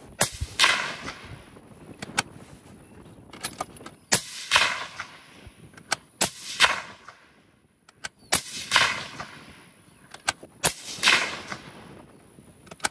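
Five rifle shots a few seconds apart from a Horizon Firearms Vandal Prime bolt-action rifle in 25 Creedmoor, firing Berger 133gr Elite Hunter handloads over H4350 powder.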